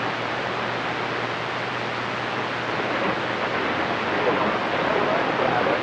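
CB radio receiver hiss on channel 28 with a steady low hum, the open-squelch noise of the band between transmissions. About three seconds in, a faint, warbling distant transmission starts to come up under the hiss.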